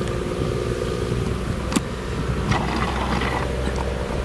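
Claas Jaguar 970 self-propelled forage harvester chopping maize: a steady low engine drone with a steady higher hum over it.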